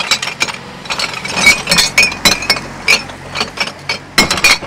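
Glass bottles clinking and knocking together as a gloved hand rummages through them in a green wheelie bin for glass: a rapid, irregular run of sharp clinks, each with a short ring.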